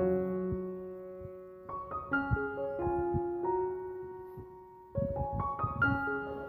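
Soft background piano music: slow chords struck and left to ring, a new phrase beginning about two seconds in and another near the end.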